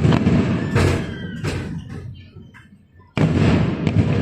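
Fireworks shells bursting, heavy booms that fade into a long rumbling echo, with a fresh loud bang about three seconds in.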